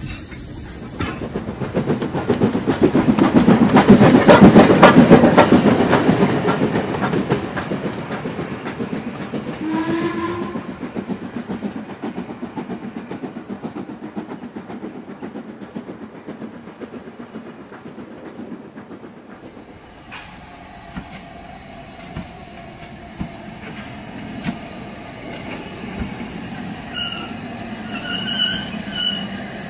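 OO gauge model trains running on a layout. A train passes close by with its wheels clattering rapidly over the rail joints, loudest about four to five seconds in and then fading away, and a brief whistle sounds about ten seconds in. From about twenty seconds in there is quieter steady running with a faint hum as a model locomotive approaches.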